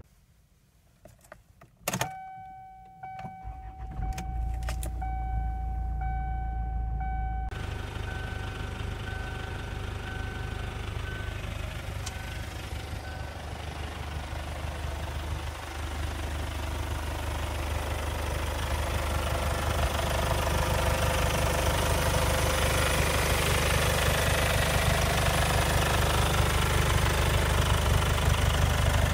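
2006 Kia Sportage's engine being started and then idling steadily. A dashboard warning chime sounds at ignition-on and cuts off a few seconds after the start, with a few clicks around it. The idle grows louder toward the end, heard up close in the open engine bay.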